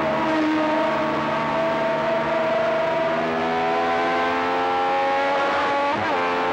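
Matra V12 engine of a 1978 Formula One car at full throttle, its pitch climbing steadily as the car accelerates down a straight, then dropping as the driver changes up a gear about six seconds in.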